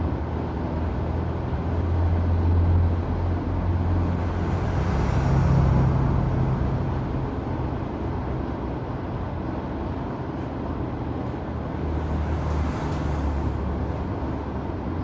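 Low rumble of background road traffic, a droning hum with a haze of noise that swells a couple of times and eases off in between.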